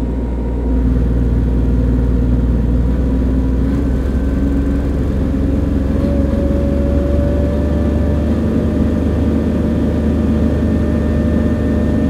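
The water-cooled Perkins 403D-11 three-cylinder diesel engine of a Lincoln Electric Dual Maverick 450 engine-driven welder speeds up as the welding output is dialled up. It grows louder in the first second, rises in pitch around the middle, then runs steadily near 3000 RPM.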